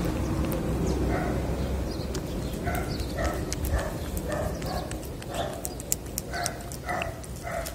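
Tabby cat eating wet cat food close up: short, wet chewing and smacking sounds about twice a second with small clicks, over a steady low rumble.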